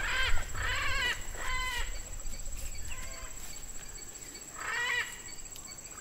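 Blue-throated macaws giving about five harsh, drawn-out calls, three close together in the first two seconds, a fainter one around the middle and a last one about five seconds in. A low rumble runs under the first couple of seconds.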